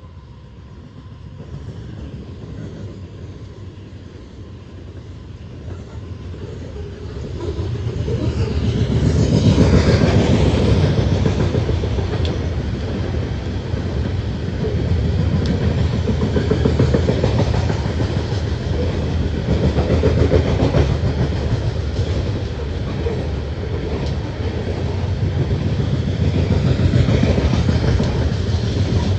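A freight train's coal hopper cars rolling past on the rails, the wheels clattering and rumbling steadily; the sound grows much louder about eight seconds in as the cars come close and then stays loud with slow swells.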